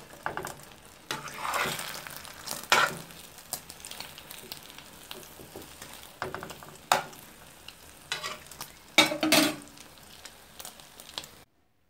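Egg omelette frying in a pan with a light sizzle while a metal spoon scrapes and knocks against the pan several times. The sound cuts off suddenly near the end.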